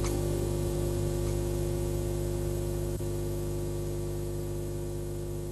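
Steady, unchanging electronic hum and buzz of several held tones over hiss, slowly fading. It is a playback fault in the broadcast: the report's audio is stuck on a frozen drone, and the report has to be restarted.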